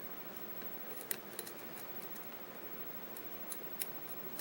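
Faint metallic clicks of a diamond lock pick pushing the pins of a Yale large format interchangeable core, a few quick ticks about a second in and a couple more near the end.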